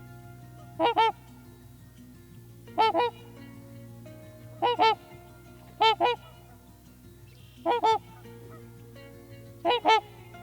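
An animal's honking call repeated six times, about every two seconds. Each call is a quick pair of short notes, and the calls are identical each time.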